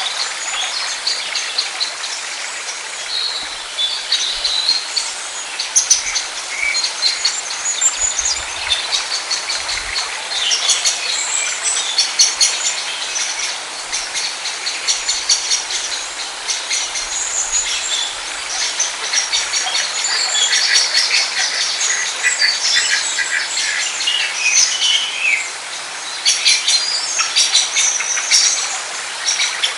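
Several wild birds chirping and singing at once, a dense chorus of quick high calls over a steady hiss of outdoor background noise.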